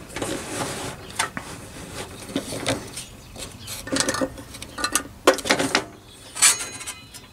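Scattered metallic clicks, knocks and rattles from winding a table saw's blade-tilt mechanism back to vertical, with a digital angle gauge riding on the blade.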